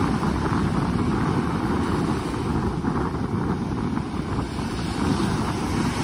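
Small ocean waves breaking and washing up a sandy beach, a steady rush of surf, with wind buffeting the microphone as a heavy low rumble.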